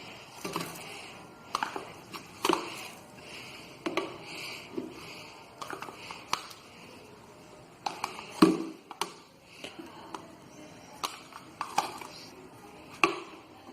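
Irregular knocks and taps of utensils and containers being handled during kitchen preparation, one louder knock about eight seconds in.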